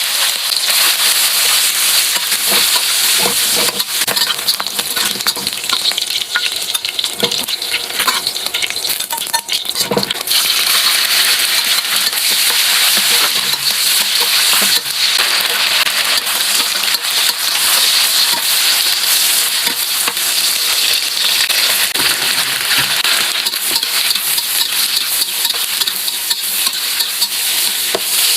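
Food stir-frying in a hot pan: a loud, steady sizzle with scattered clicks and scrapes of the spatula stirring. It starts suddenly just before and goes on throughout.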